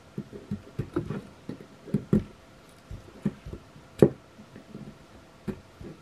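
Can-opener hook of a stainless steel credit-card multitool scraping and gouging into the edge of a wooden board, cutting curls of shavings: a run of irregular short scrapes and knocks, the loudest about four seconds in.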